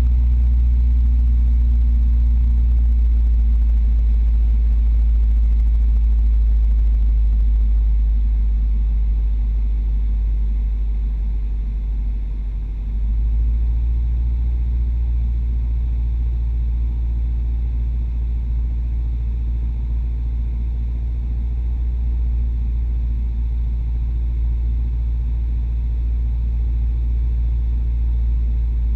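Cessna 172's piston engine and propeller droning steadily, heard from inside the cabin. The drone dips slightly and then shifts in pitch and level about thirteen seconds in.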